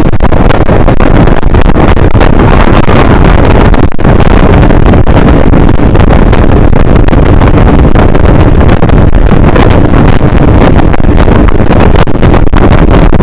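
Fishing boat under way, its engine running under a loud, steady rush of wind on the microphone.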